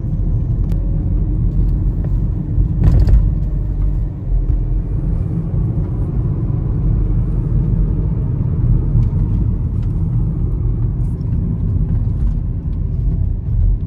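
A steady low vehicle rumble, with a short knock about three seconds in.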